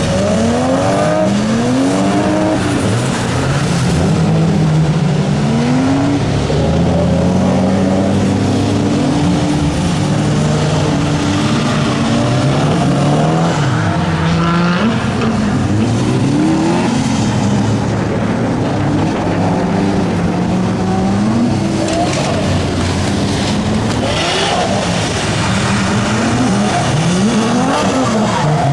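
Several car engines at a circuit revving up and down over and over, their pitches overlapping, with tyre squeal, typical of cars sliding through corners in drifting.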